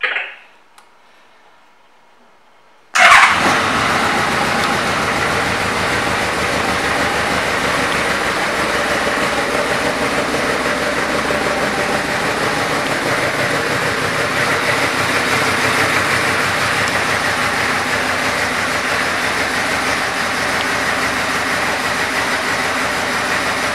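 2006 Yamaha Royal Star Venture's V4 engine starting suddenly about three seconds in, then idling steadily.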